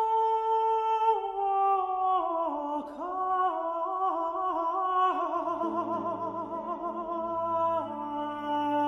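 Countertenor singing a slow phrase of a Baroque opera aria. A long held note falls away in steps into ornamented runs with vibrato. Low sustained string accompaniment enters quietly beneath the voice a little past halfway.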